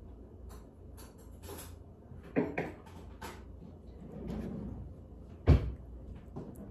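A few sharp knocks and clatters, the loudest a single thump about five and a half seconds in, with a softer muffled low sound shortly before it.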